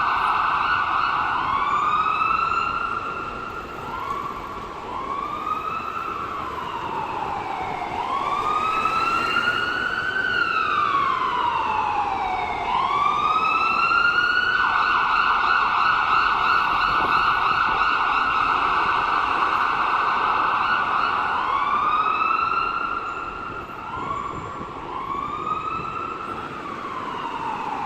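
Ambulance siren sounding continuously and changing its pattern. It gives short rising whoops, then a slow rise and fall, then a long steady held tone from about halfway through, and then rising whoops again.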